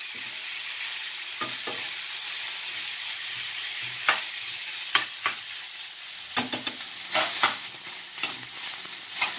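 Ground beef sizzling steadily as it fries in a frying pan, with a metal spoon scraping and knocking against the pan in irregular clicks as the meat is stirred and broken up.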